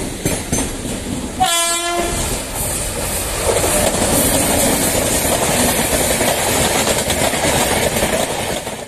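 A train horn gives one short blast about a second and a half in. Then an electric locomotive and its passenger coaches pass close by, the steady noise of wheels on rails growing louder from about three and a half seconds in as the locomotive draws level.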